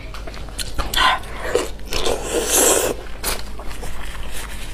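Close-up eating sounds: wet chewing and smacking of soft blood sausage, with clicks from gloved hands pulling it apart, and a louder noisy stretch between about one and three seconds in.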